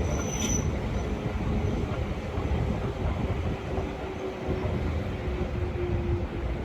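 Diesel locomotive-hauled train running, with a steady deep rumble and an engine note that slowly drops in pitch; a brief high squeal sounds about half a second in.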